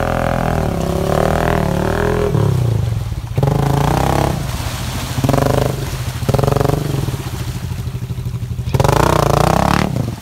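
Honda Rancher 420 ATV's single-cylinder engine running with a wavering pitch, then revved in about four short bursts. The quad is hung up on a submerged log in deep muddy water, and the last and loudest burst, near the end, lifts the front wheels up.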